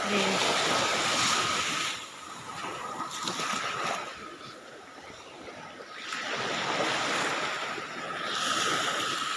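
Small waves washing up on a sandy beach. The surf swells and recedes, loud for the first couple of seconds, fading through the middle and building again in the second half.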